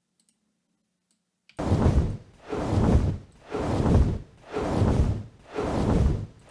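Designed dragon wing flapping sound effect, layered flap recordings with a whoosh, played back as a loop. After a second and a half of silence, five deep whooshing flaps come evenly, about one a second, each swelling and fading.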